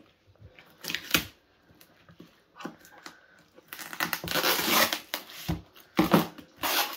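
Scissors cutting and tearing the packing tape on a cardboard box, with a long crinkling, tearing stretch in the middle and a few sharp clicks and knocks of the blades and cardboard.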